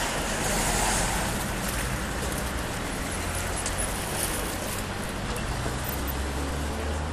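Road traffic noise: a car passing on the street, loudest about a second in, then a steady low engine hum.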